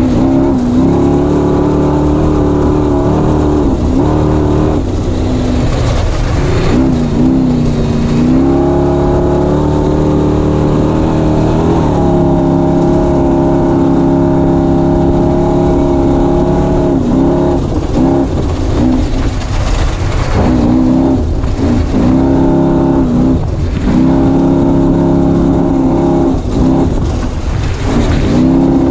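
Off-road race vehicle's engine running hard, heard on board: its pitch holds steady for stretches and several times dips briefly and climbs back, over a constant low rumble of wind and rough terrain.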